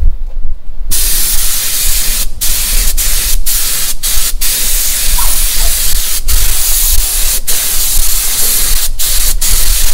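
Compressed-air paint spray gun hissing as it sprays the engine bay, starting about a second in and broken by many short breaks where the trigger is let off.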